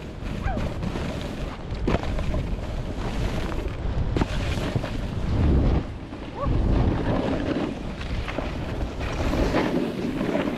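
Wind rushing over the microphone and skis scraping and hissing over packed snow during a downhill run, with a brief lull about six seconds in.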